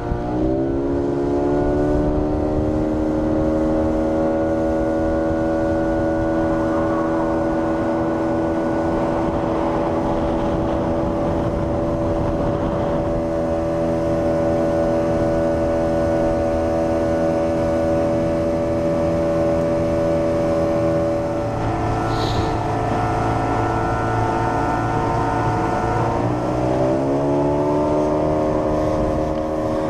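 Small outboard motor on an inflatable dinghy running flat out, a steady high engine note over water noise. It revs up in the first second, its note shifts about two-thirds of the way through, and it dips and climbs again near the end.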